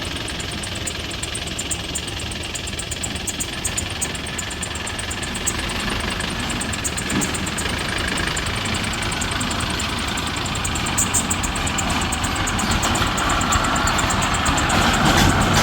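Heavy diesel engine running steadily, getting louder toward the end.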